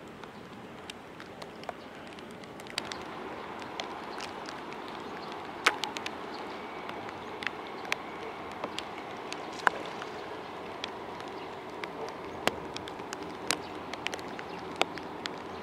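Rain falling, an even hiss with sharp drops tapping close by at irregular moments, several a second. The hiss gets a little louder about three seconds in.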